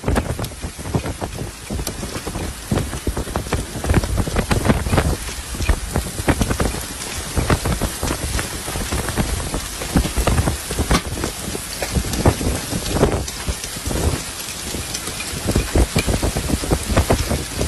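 Heavy rain pelting a car's roof and windscreen in a storm, heard from inside the cabin: a dense patter of many sharp individual hits over a steady low rumble.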